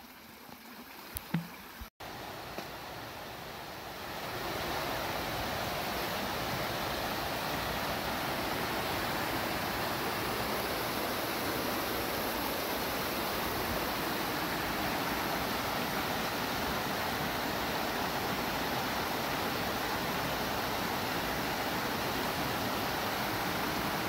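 Shallow, rocky mountain stream rushing and gurgling over stones in riffles, a steady rush that comes up fully about four seconds in.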